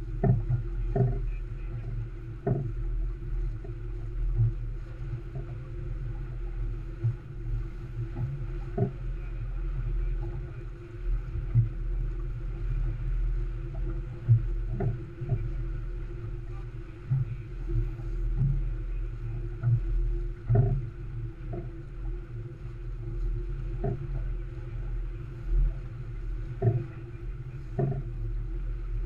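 Olson 25 sailboat beating through chop, heard through a mounted camera: a steady low rumble of wind and rushing water, with irregular knocks as the hull slaps into waves.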